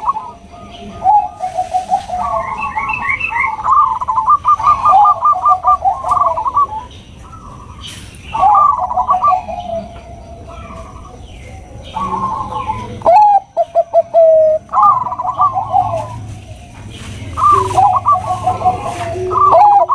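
Bangkok-bred zebra doves (perkutut) cooing: phrases of quick, rolling notes repeated again and again, with short pauses between.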